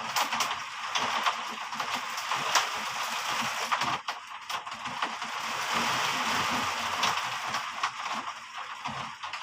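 Heavy rain falling steadily: a dense hiss with many sharp drop impacts ticking close by.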